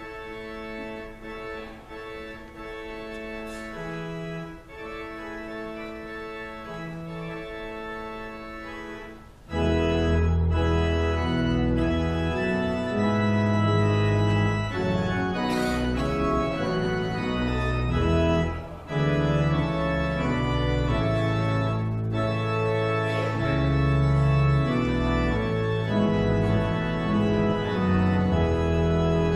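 Pipe organ playing slow, sustained chords. It starts soft and swells louder about nine seconds in, as deep pedal bass notes come in.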